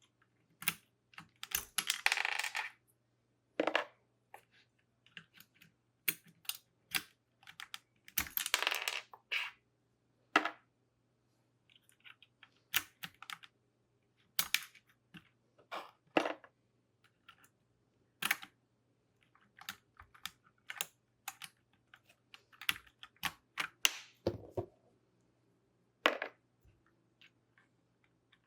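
Keycaps being pulled off a mechanical keyboard one at a time: sharp plastic clicks and snaps about once a second, with two longer clattering stretches, one about two seconds in and one around eight to nine seconds in.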